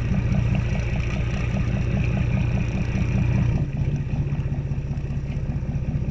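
Motorboat engine running at low speed with an even, rapid pulsing, eased back about three and a half seconds in as the boat comes into its slip.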